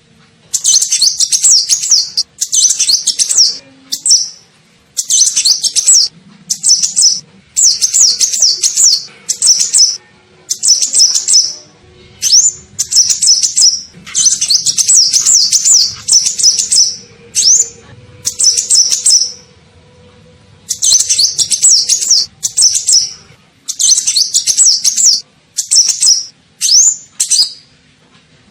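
Kolibri ninja sunbird song used as a bird-lure call: rapid, high-pitched twittering phrases about a second long, repeated over and over with short gaps between them.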